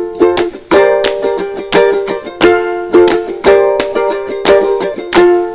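Background music: a light, bouncy tune of plucked strings in a steady rhythm.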